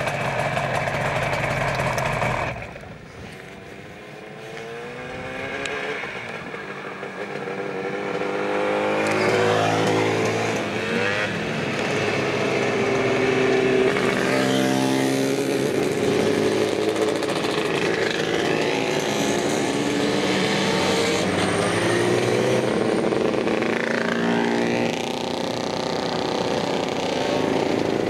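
A column of motorcycles, mostly Yamaha two-strokes, riding past one after another, each engine rising then falling in pitch as it goes by. The sound starts faint and builds as the bikes come close. It follows a louder, steady engine sound that cuts off about two and a half seconds in.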